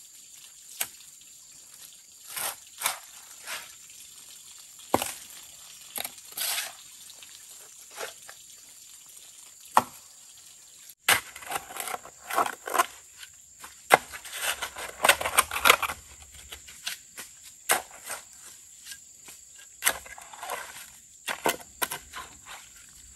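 Hand hoe working wet soil and mud: scattered single strikes and scrapes in the first half, then quick, irregular strokes digging and dragging mud, closely packed for several seconds after about the midpoint.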